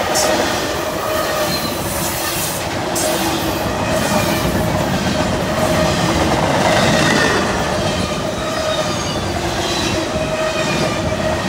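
Norfolk Southern intermodal freight train's empty double-stack well cars rolling past: a steady rumble of steel wheels on rail, with thin, steady squealing tones from the wheels and a few clicks over the rail near the start.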